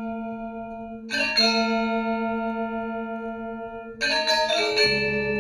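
Gamelan bronze percussion struck in a few separate strokes, at the start, about a second in and again about four seconds in, each note ringing on with a long, bell-like sustain.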